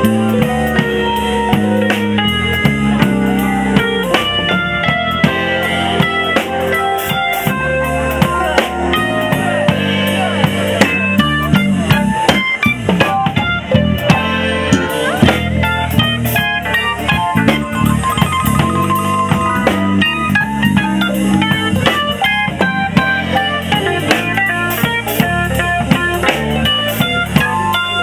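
Live soul band playing an instrumental passage with no singing: electric keyboard, bass guitar and drum kit, with a steady drum beat.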